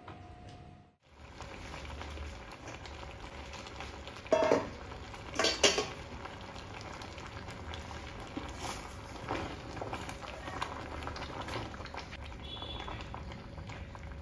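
Water boiling in a stainless steel pot of blanching spinach: a steady bubbling and crackle. A silicone spatula stirs the leaves, with two louder clatters against the pot around the middle.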